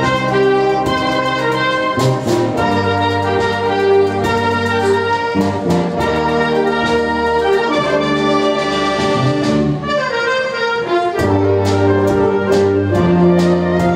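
Concert wind band playing: brass and woodwinds hold full chords over a drum kit keeping a steady beat with cymbal strokes. The low brass drops out briefly and comes back in strongly about eleven seconds in.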